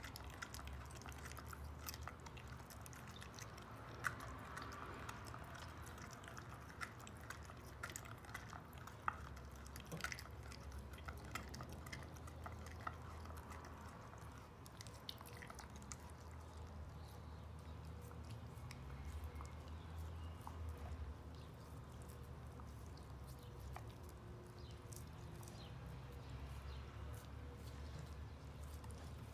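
Border collie gnawing and licking a large raw ear: faint wet smacking and clicks of teeth and tongue at irregular intervals.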